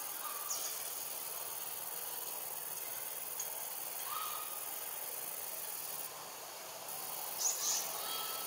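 Forest ambience: a steady high-pitched insect drone, with a few brief chirps over it, the loudest pair near the end.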